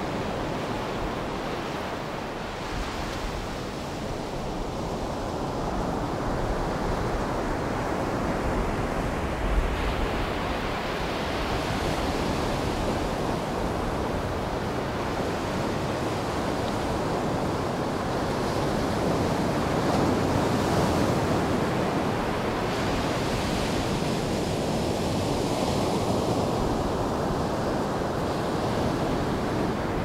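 Ocean surf breaking and washing up onto a sandy beach: a steady rushing wash that swells and eases every several seconds as the waves come in.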